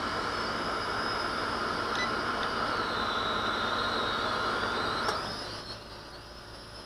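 Small toy quadcopter's motors and propellers whirring steadily, with a high whine that wavers in pitch as the motor speeds change. It goes noticeably quieter about five seconds in.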